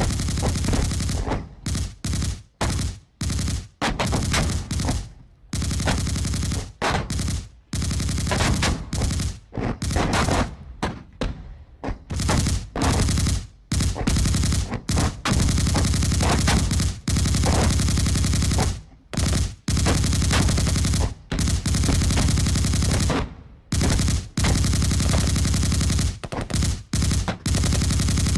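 Machine-gun fire: bursts of automatic fire of varying length, with short pauses between them.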